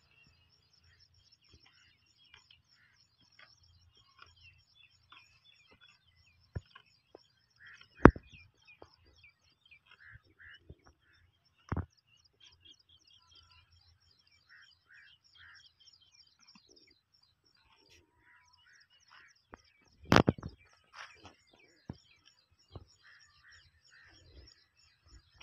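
Birds chirping steadily in the background. A few sharp knocks cut through about 8, 12 and 20 seconds in, the one near 8 seconds the loudest.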